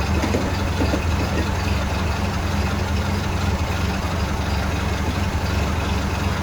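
1931 Ford Model A's four-cylinder flathead engine idling steadily, running on its old, hand-filed distributor cap and rotor after a misfire at idle.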